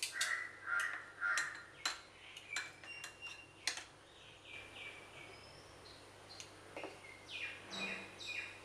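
Faint birds calling in short repeated and falling calls, with a few sharp clicks of metal kitchen tongs against a glass bowl of beaten egg in the first four seconds.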